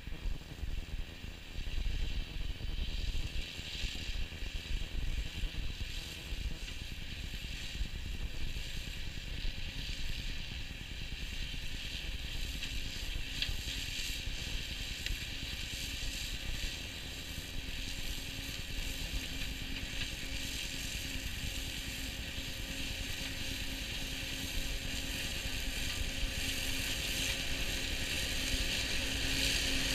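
New Holland tractor running a Shelbourne boom-mounted flail hedge cutter, the flail head mowing the grass and weeds on a ditch bank. A steady mechanical whir and clatter that grows louder toward the end.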